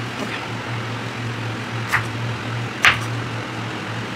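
Knife cutting small eggplants on a chopping board: two sharp cuts about a second apart, over a steady low hum.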